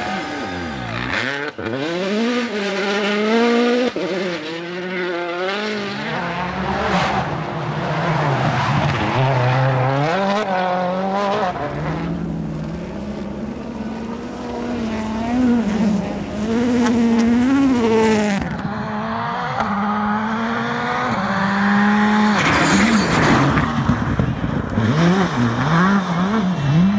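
Rally car engines revving hard, the revs rising and falling again and again through gear changes, with gravel and tyre noise as the cars slide through gravel stages over several successive clips.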